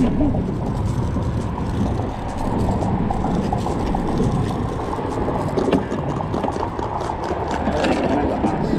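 Steady low rumble of wind blowing across the microphone.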